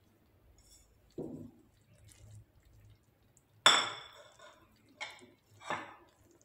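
Kitchenware clinking around a steel saucepan as bread is stirred into milk: a dull knock about a second in, one sharp ringing clink a little past halfway, then two softer clinks.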